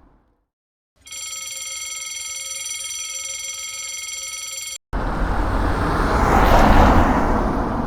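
A level crossing's warning bell rings steadily for about four seconds, then stops abruptly as a train passes, its rushing noise swelling to a peak and fading away.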